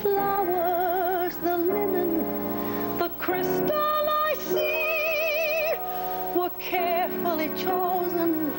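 A woman's soprano voice singing a slow show tune with piano accompaniment, holding long notes with a wide vibrato, the phrases broken by short pauses for breath.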